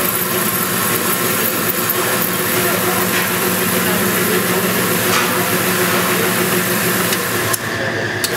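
Motorized target carrier of an indoor shooting range running steadily as it carries a paper target downrange, a continuous mechanical hum. It cuts off near the end.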